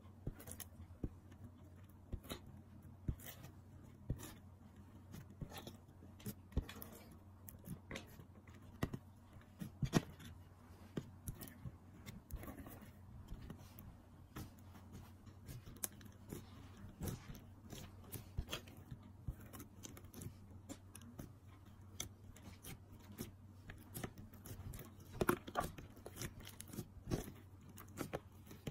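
Hands pressing, folding and kneading clear slime mixed with glitter and crushed makeup. The slime gives irregular sticky clicks and crackles, a few louder ones around ten seconds in and near the end, over a low steady hum.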